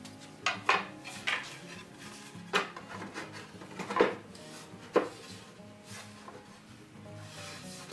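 Workshop handling clatter: a metal file and a wooden buggy-seat panel knocking against a metal machine table, about six sharp separate knocks, the loudest two near the middle.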